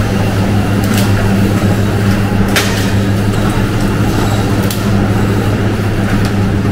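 Steady hum of meat-processing plant machinery, with a low drone, and a few sharp knocks about one to two seconds apart.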